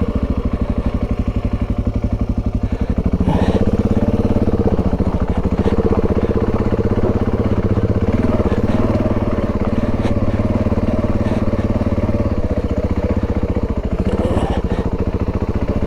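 Dual-sport motorcycle engine running at low speed with a steady, even pulse as the bike is ridden slowly over rough ground, getting a little louder about three seconds in.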